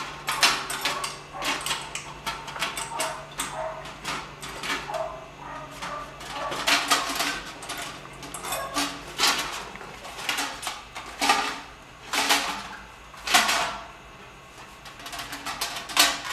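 Repeated metallic clattering, rattling and scraping as the dryer vent puller tool and the vent are worked by hand, with several louder knocks spaced a second or two apart.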